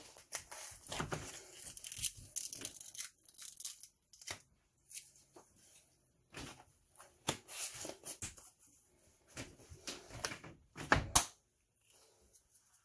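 Paper seal being picked at and torn off the mouth of a new plastic spice jar of whole oregano: a run of short scratchy tearing and crinkling sounds, with a louder knock near the end.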